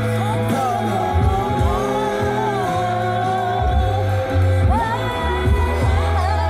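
A pop song with a sung vocal over a deep, steady bass line, playing on a car stereo, with a man and a woman singing along.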